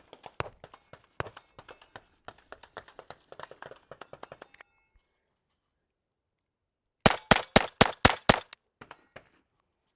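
Glock 44 .22 LR pistol fired rapidly: a quick string of about seven sharp shots in under a second and a half, the loudest thing here. Before it come many light clicks and knocks, then a short quiet gap.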